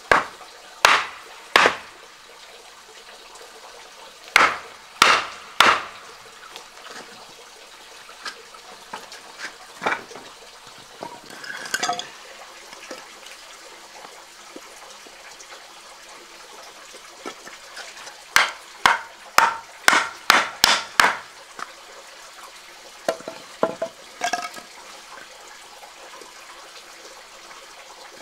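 Sharp knocks from hard strikes coming in short runs: three near the start, three a few seconds later, a quick run of about eight past the middle, and a few more near the end, with a faint ringing clink now and then.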